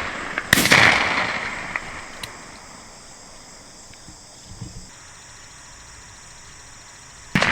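A shotgun shot about half a second in, its report fading away over the field, then a steady high insect drone, and another shotgun shot right at the end: hunters firing at passing doves.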